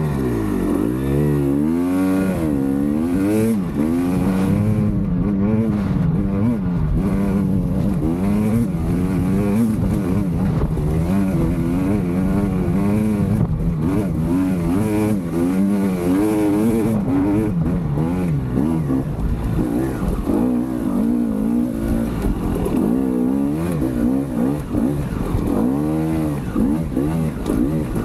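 Two-stroke single-cylinder engine of a 2020 KTM 300 XC dirt bike, converted to throttle-body injection, pulling a hill climb in third gear. Its revs rise and fall over and over as the throttle is worked. It pulls the climb strongly without dragging down, enough to lift the front wheel.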